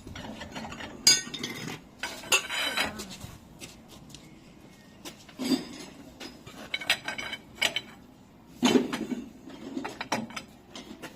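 Hand wrench with an extension bar being worked on a combine harvester's rear wheel nuts as they are tightened: irregular metallic clinks and knocks of steel on steel, with a short scrape about two seconds in.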